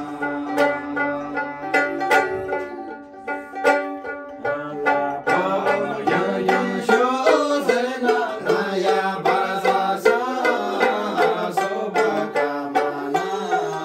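Two tungna, small skin-faced Himalayan lutes, strummed in a steady rhythm, with a group of men singing a folk song over them; the voices come in strongly about five seconds in.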